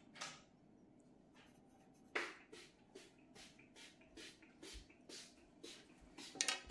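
Pencil scratching on paper in short quick strokes, about two or three a second, with a louder stroke near the end.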